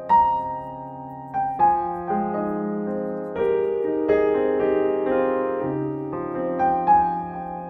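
Background piano music: a slow, gentle melody of held notes and chords.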